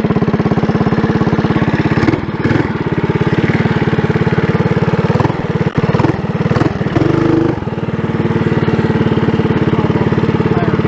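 Trailmaster Hurricane 200X minibike's single-cylinder engine, fitted with a stage one kit, idling steadily with even firing pulses, with a few brief irregularities in the sound in the middle.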